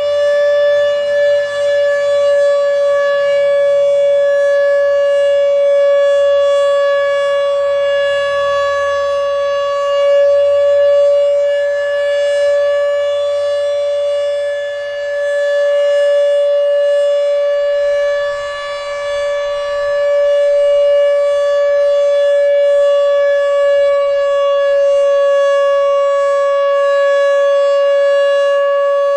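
Fedelcode Type Mach 5 dual-rotor outdoor warning siren sounding a steady full-alert tone, its pitch holding level throughout. It is running a bit sluggish, which is probably part of why it is not that loud.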